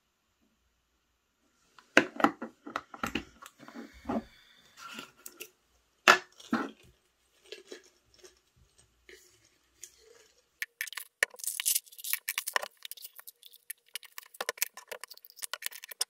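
Handling clicks of a snap-lid plastic pill case and a metal screw cap coming off a glass vitamin bottle. In the second half comes a quick run of light clicking rattles as tablets are shaken out of the bottle into the plastic case.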